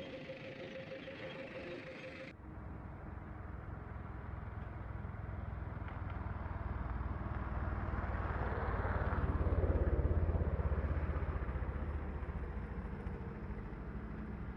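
A motor vehicle passing, its low engine rumble building to its loudest about two-thirds of the way through and then fading.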